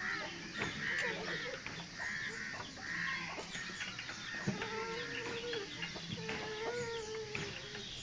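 Birds calling, typical of farmyard fowl: many short chirps, with two longer, drawn-out calls in the second half.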